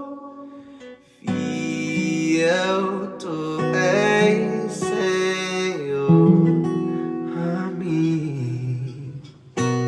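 Acoustic guitar played under a singing voice in a worship song, after a short pause about a second in; the voice carries the melody without clear words here.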